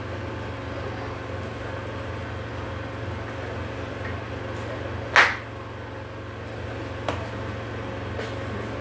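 Shredded cabbage being moved by hand from a small glass bowl into a large glass salad bowl over a steady low hum, with one sharp knock of glass about five seconds in and a lighter click about two seconds later.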